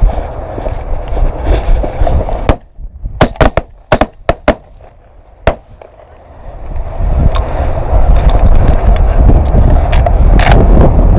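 Loud low rumbling noise, like wind buffeting the microphone or the camera being handled on the move. In the middle it drops away for a few seconds, and about seven sharp clicks or knocks come in quick succession.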